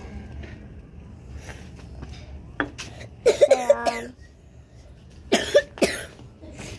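A person coughing in two short bouts, the first about three seconds in, the second, two quick coughs, about five and a half seconds in.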